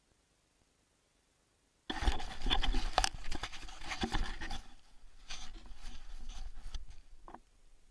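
Near silence, then about two seconds in a sudden loud scraping and rustling with sharp clicks that fades near the end: handling noise from an action camera being picked up off the ground, its case rubbing against hands and clothing.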